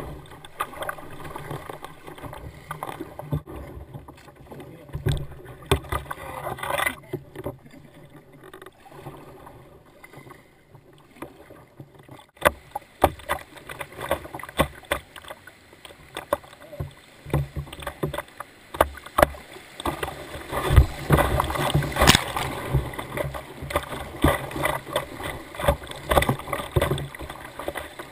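Kayak running through river rapids: water rushing and splashing against the hull and over the bow, with paddle strokes dipping in. Many short sharp splashes, getting busier and louder in the second half.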